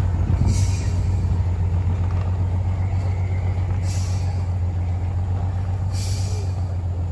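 Heavy bus's diesel engine pulling under load up a steep dirt grade, a steady low drone, with brief hisses of released air three times.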